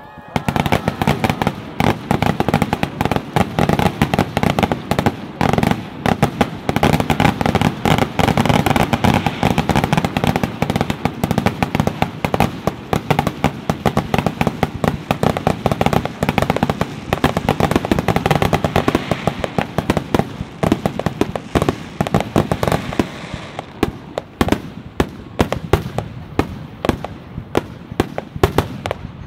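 Fireworks display: a dense, continuous barrage of bangs and crackles that starts abruptly and thins out in the last few seconds.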